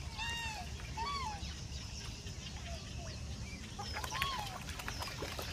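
Black swans calling: three short, arched, bugle-like notes, at the start, about a second in and about four seconds in, with fainter notes between.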